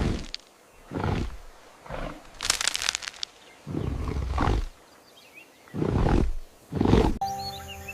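A series of about six loud animal roars, each under a second long and spaced about a second apart, with one hissier, breathier burst in the middle. Music comes in near the end.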